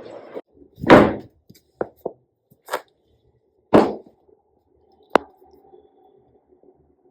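A series of household knocks and thuds, with two loud ones, then a sharp click about five seconds in followed by a faint steady hum.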